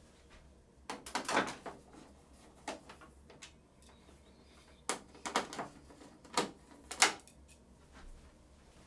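Sharp plastic clicks and knocks, in several short clusters, as a long screwdriver works at the rear plastic cover of an Epson WF-R5690 printer to free it. The loudest knock comes about seven seconds in.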